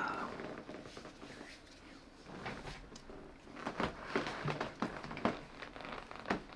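Scattered light knocks and shuffling of a person moving about and settling onto a seat, the knocks clustering from about two seconds in.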